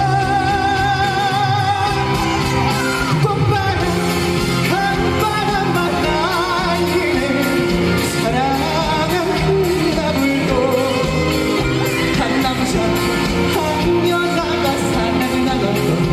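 Live performance of a Korean trot song over a loud backing track, a sung note held with vibrato about a second in, with shouts from the audience.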